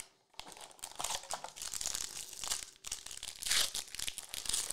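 Foil wrapper of an Obsidian soccer trading-card pack crinkling and tearing as it is opened by hand, in irregular crackly bursts, loudest about three and a half seconds in.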